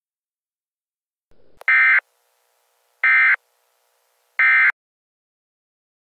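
Emergency Alert System end-of-message signal: three short bursts of SAME digital data tones, with about a second's gap between them.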